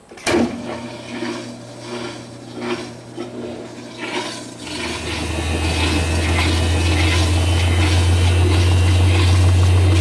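GE top-loading washing machine starting its spin cycle: a click as the timer knob is set, then water rushing out as it drains, and about five seconds in a steady low motor hum sets in and grows louder as the tub spins up. The machine is now going into spin after its clogged pressure-switch hose was cleared by blowing into it.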